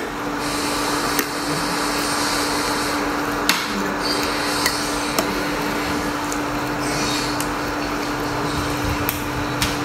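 Diced pork belly with shrimp paste sizzling steadily in a stainless steel pan as it is stir-fried until the meat firms up. A metal spoon clinks and scrapes against the pan a few times, over a steady low hum.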